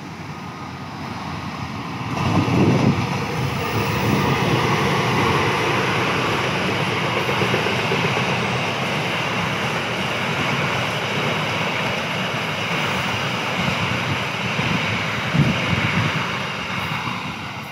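Indonesian passenger train passing close at speed behind a diesel locomotive: steady engine rumble and wheel-and-rail noise that swells about two seconds in, holds loud while the coaches go by, and eases off near the end.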